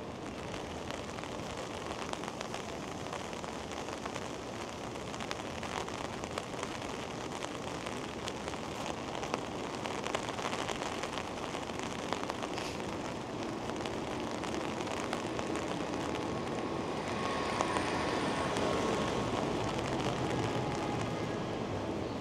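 Steady rain falling on hard surfaces, a constant hiss with many small drop ticks. Over the last few seconds a louder rumble with faint steady tones builds up under it.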